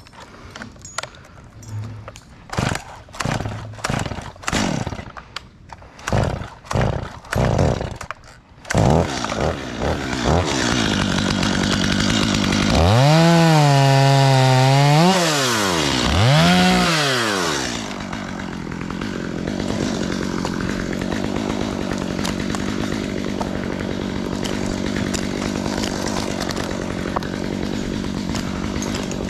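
Stihl two-stroke chainsaw being pull-started: a string of short pulls for about eight seconds until it catches, then running continuously. It is revved up and back down twice before settling into a steady run.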